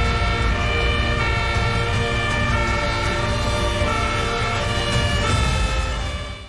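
Fire engine siren playing continuously over a low rumble, in steady tones that change pitch in steps; it fades a little and cuts off abruptly near the end.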